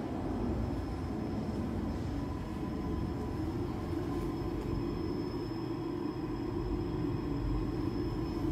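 Weber CCS 302 UB industrial meat slicer running: a steady low machine hum, with a faint high whine joining about two seconds in.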